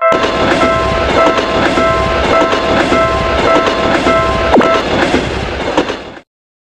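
Railroad crossing bell ringing over the clatter of a passing train, its wheels clicking over the rail joints. The bell stops about five seconds in, and the train sound cuts off suddenly about a second later.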